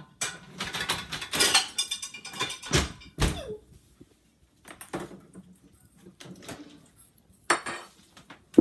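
Metal cutlery and kitchenware clattering as utensils are rummaged through, with two heavier knocks about three seconds in and scattered clicks after, ending on a sharp clack.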